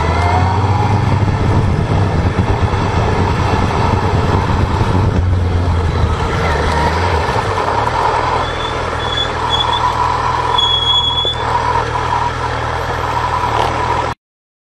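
Motorcycle engine running as the bike rides along at low city speed, with road and wind noise, and a low rumble that eases off about halfway through. A few short high beeps sound around two-thirds of the way in. The sound cuts off suddenly near the end.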